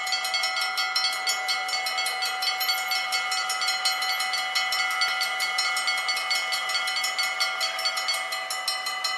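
Level-crossing warning bell ringing with rapid, even strokes, about five a second, over a lingering ring, while the half barriers lower: the warning that a train is approaching.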